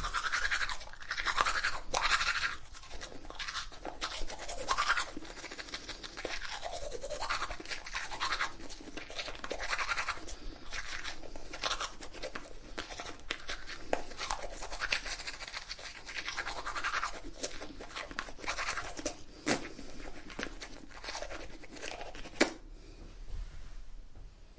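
Toothbrush scrubbing teeth in rapid, irregular back-and-forth strokes, with occasional sharp clicks of the brush against the teeth. The strokes die away near the end.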